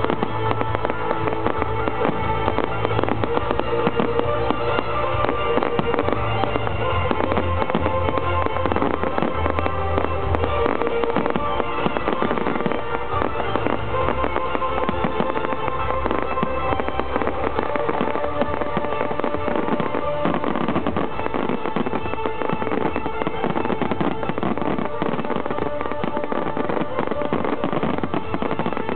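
Fireworks finale: dense, continuous crackling and popping of exploding shells and crackle stars, layered over the loud music of the fireworks-to-music show.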